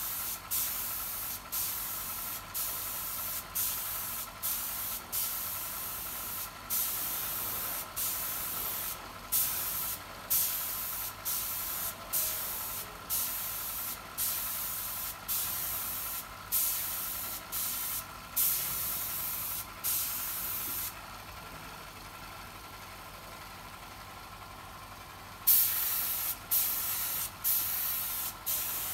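Compressed-air spray gun hissing in short repeated bursts, about one a second, while finish is sprayed on a carved wooden pillar. The bursts stop for about four seconds and start again near the end. A faint steady tone runs underneath.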